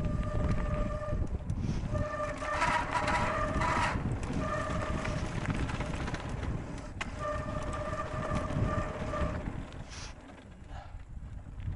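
Mountain bike descending a loose gravel trail: wind buffeting the helmet-camera microphone over the rumble of tyres on gravel, with a steady mid-pitched whine coming and going in stretches of a second or two, dropping off for a moment near the end.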